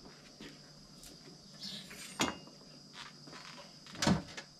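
Knocks and a short clatter as a cover is being closed, a sharp knock about two seconds in and a louder one near the end, over a faint steady high whine.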